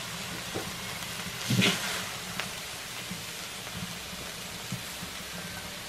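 Chile-coated beef and pork steak sizzling steadily on a hot comal, with a short scrape of the metal spatula against the griddle about a second and a half in.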